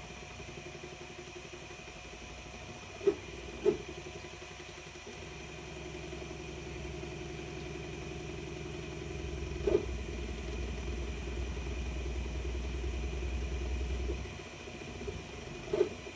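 Ortur Laser Master 2 Pro diode laser engraver running a raster fill: the stepper motors whir in a fast, even pulsing as the head scans back and forth, over the laser module's steady cooling-fan hum. A deeper hum swells in the middle and drops away near the end, and four brief sharp knocks stand out, two near the start, one in the middle and one at the very end.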